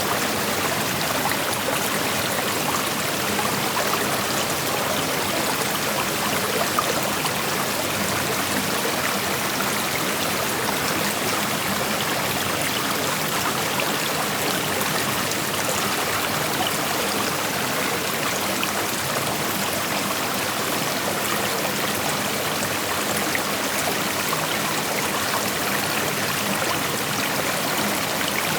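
Creek water rushing and splashing over rocks, a steady, even rush with small trickles.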